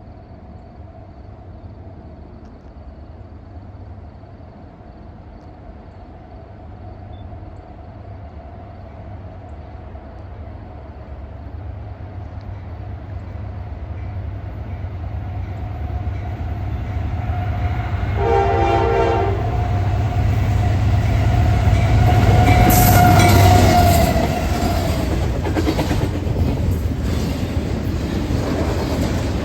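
Norfolk Southern diesel freight locomotive approaching, its rumble growing steadily louder. It sounds its multi-note air horn in a short blast about eighteen seconds in, then passes closest with wheel clatter a few seconds later.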